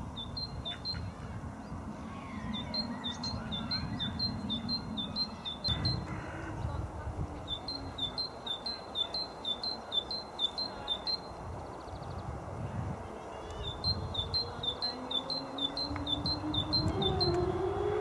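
Great tit singing: phrases of fast, evenly repeated high two-note chirps, each lasting two to three seconds with pauses between, over a steady low rumble. Near the end a low tone comes in and rises in pitch.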